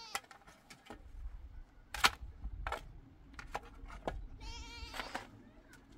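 A farm animal bleats once, a wavering high call of under a second, about four and a half seconds in. Before it come a few sharp clicks or knocks, the loudest near two seconds in, over a low rumble.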